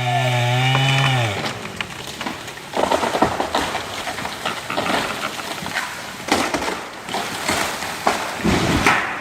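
A tree coming down, its branches and wood cracking and splintering in a long run of snaps and crashes, with a heavier low thud near the end. At the start a steady hum dies away within about a second.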